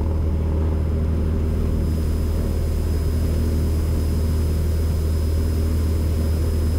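Cessna 172's engine and propeller at full takeoff power during the takeoff roll, a steady drone with a strong low hum, heard inside the cockpit.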